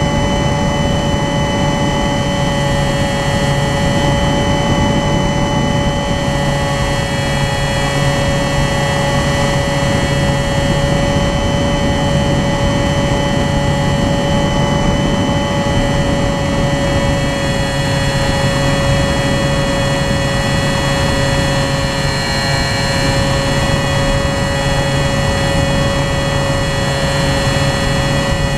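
RC model aircraft's motor and propeller running steadily in flight, heard from the onboard camera as a steady whine of several tones that drift slightly in pitch, over a rush of air noise.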